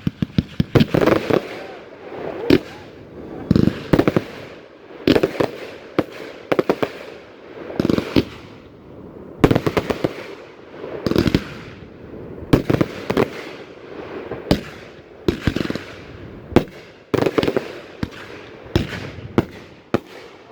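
Consumer 1.3G fireworks going off one after another: sharp bangs in quick clusters, roughly one volley every second or so, each with a short echoing tail.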